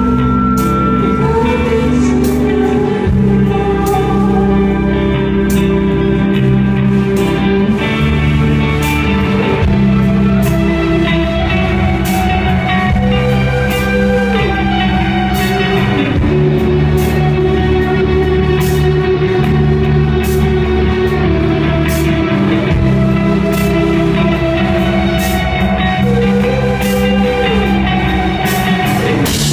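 Live rock band playing: electric guitars ring out in held, overlapping notes with a couple of falling slides, over drums with steady cymbal hits.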